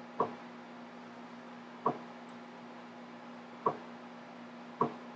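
CNC mini mill's Z axis jogged down in small steps, each move a brief click from the stepper drive, four in all about every second and a half to two seconds, over a steady low hum.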